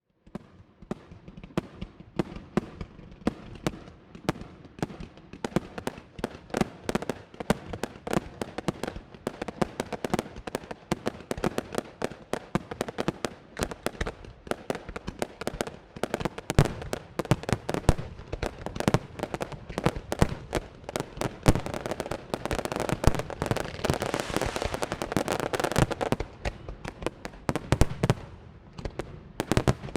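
Fireworks display: a rapid, continuous string of bangs and crackling shell bursts, thickening into a dense barrage in the second half before thinning near the end.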